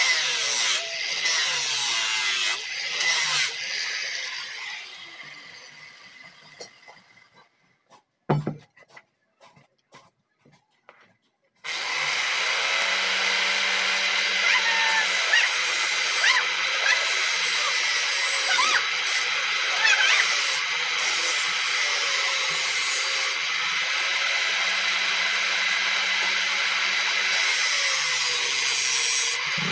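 Electric angle grinder grinding steel, then switched off and spinning down over a few seconds, with a knock and near quiet while it is moved. About twelve seconds in it starts abruptly and runs steadily as a flat steel blank is pressed against its disc, its whine wavering with the pressure.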